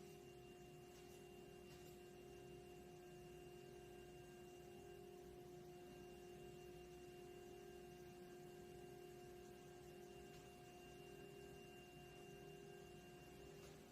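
Near silence, with a faint, steady hum of a few held tones.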